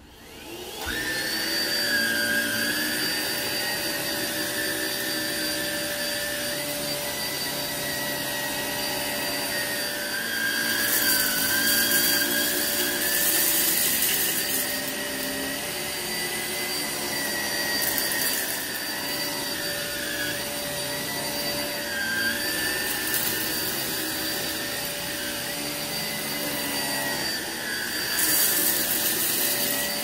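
Hoover ONEPWR Evolve Pet cordless upright vacuum switched on, its motor spinning up with a rising whine about half a second in, then running steadily. The whine wavers and dips in pitch at times, with a few short bursts of higher hiss.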